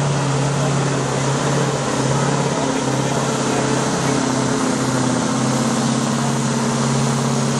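Heavy diesel truck engine running steadily under heavy load as the truck drags a weight-transfer sled in a truck pull; a second, higher engine tone joins a few seconds in.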